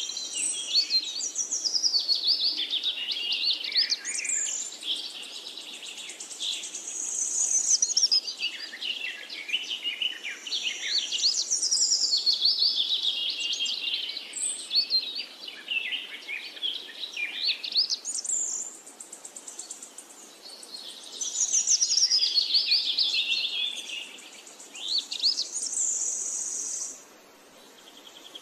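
Many birds chirping and calling at once in a busy chorus of overlapping high chirps and quick sweeping whistles, with a steady high trill now and then. The chorus thins out abruptly near the end.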